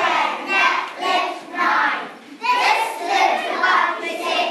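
A group of young children chanting a rap together in a steady rhythm of short phrases.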